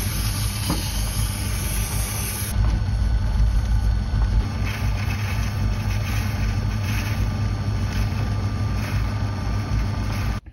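Small metal lathe running steadily with a low motor hum, spinning a brass piston head held in a collet. At first wet-and-dry paper rubs on the turning brass; about two and a half seconds in the sound changes to a lathe tool cutting oil grooves into the head.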